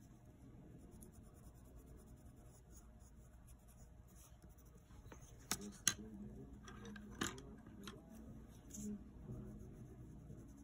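Faint scratching of colored pencil on paper, broken by a few sharp clicks about halfway through as the green pencil is set down and a black one picked up. Light pencil strokes resume near the end.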